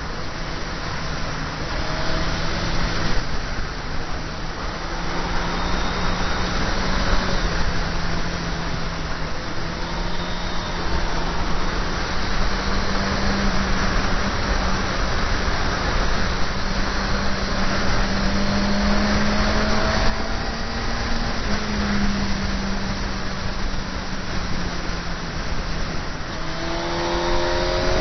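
Motorcycle engine running at road speed under a dense rush of wind noise on the bike-mounted microphone. The engine note rises and falls with the throttle through the curves, then climbs quickly near the end as the bike accelerates.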